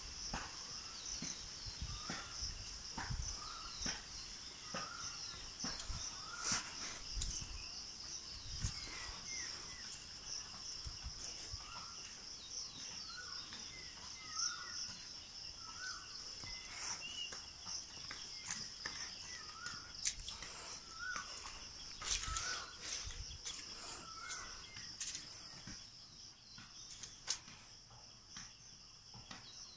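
Outdoor ambience: a steady high insect drone, cricket-like, with a short chirping call repeated about every second and scattered clicks and thumps of footsteps and handling. The chirps fade out in the last few seconds.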